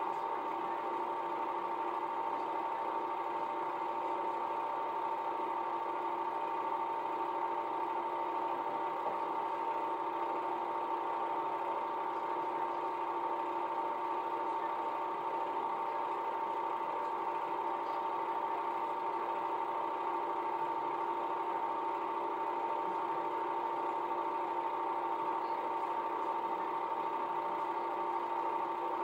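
Film projector running steadily, its motor and film mechanism giving an even whir with a constant high whine.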